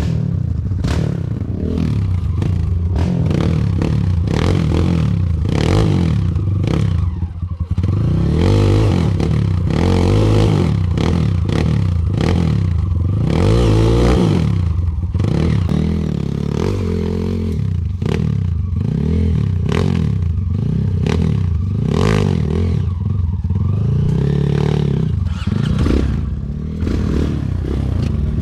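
Kawasaki KLX140G dirt bike's single-cylinder four-stroke engine being ridden, revving up and falling back again and again, with constant clattering and knocking throughout.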